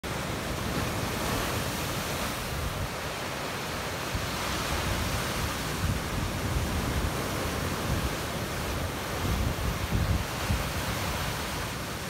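Sea surf breaking over shoreline rocks and washing in as foam, a steady rush of water, with wind buffeting the microphone in low gusts.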